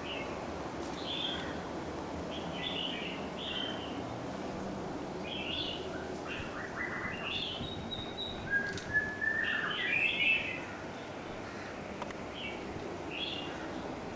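Birds chirping in short, scattered calls over a steady low background hiss, with a louder flurry of calls about two-thirds of the way through.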